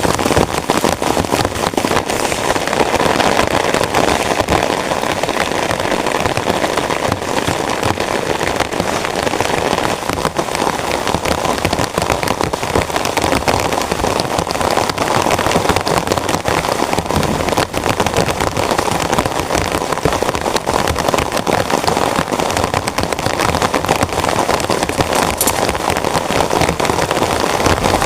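Heavy rain hitting a tent: a dense, steady patter of drops on the fabric that does not let up.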